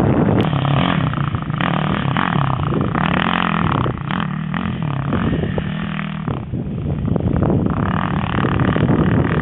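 A 450cc single-cylinder four-stroke sport quad engine revving up and down as it is ridden around a dirt motocross track.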